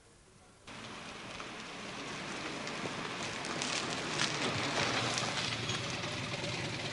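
A Talbot car driving up slowly, its engine and tyre noise growing steadily louder as it approaches. The sound starts suddenly under a second in, with a few faint crackles midway.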